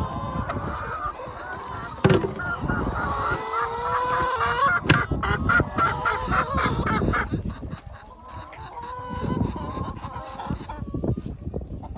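Flock of laying hens calling and squawking over one another, with a couple of sharp knocks about two and five seconds in.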